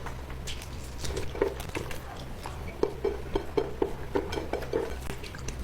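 Close-miked chewing of soft flat rice noodles: quiet wet mouth smacks, irregular at first, then about three or four a second from about halfway in.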